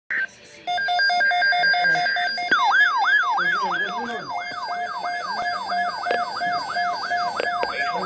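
A Reecom SAME weather alert radio going off for a NOAA Weather Radio winter storm watch. A short screech of rapidly alternating SAME data tones plays first. From about two and a half seconds in comes a siren-like alert of quickly repeating falling whoops, a little over two a second, over a steady tone.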